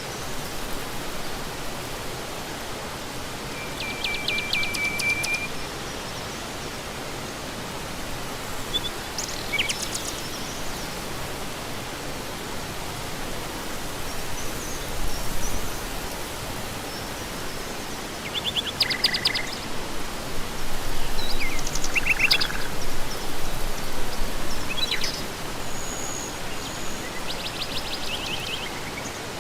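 Birds chirping now and then over a steady rushing noise.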